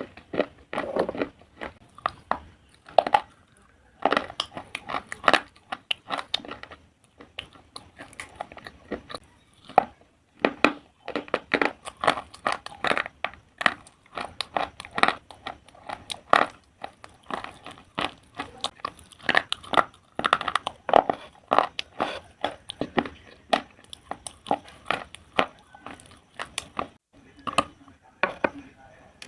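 Pieces of slate being crunched: a rapid, irregular run of sharp, crisp cracks and crumbles, with a couple of brief lulls.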